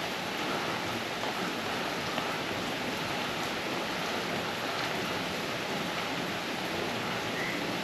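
Steady, even noise of rain.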